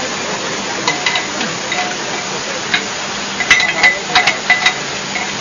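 Steel parts and tools clinking together during bolt-connecting work on steel mesh and supports: a few scattered metallic clinks, then a quick run of sharper, ringing clinks about two thirds of the way through. A steady hiss runs underneath.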